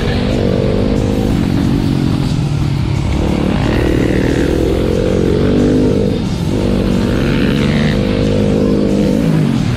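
Motocross bike engine revving hard on the track, its pitch dipping sharply about every three seconds and climbing back as the rider shuts and reopens the throttle.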